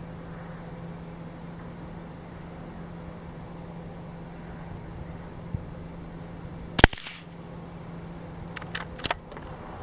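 A single shot from a CZ 455 bolt-action .22 LR rifle about two-thirds of the way in, a sharp crack, followed about two seconds later by a couple of quieter clicks.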